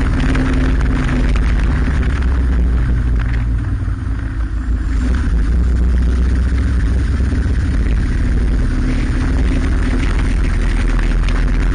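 Motorcycle engine running steadily under way, with wind and road noise. The engine eases off and goes briefly quieter about four seconds in, then pulls steadily again.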